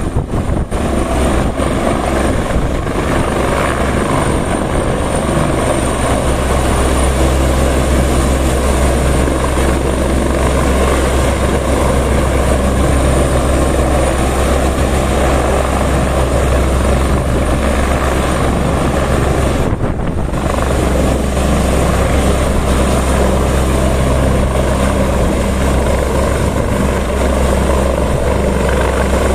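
Airbus EC175 twin-turboshaft helicopter hovering low and close: a loud, steady low rotor beat under dense engine and rotor-wash noise, with a thin high turbine whine running over it.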